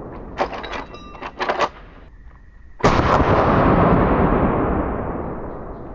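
Henry All-Weather lever-action .45-70 rifle. The echo of a previous shot fades, then comes a quick run of metallic clicks and clacks as the lever is worked. About three seconds in, one loud shot follows, its rolling echo dying away slowly.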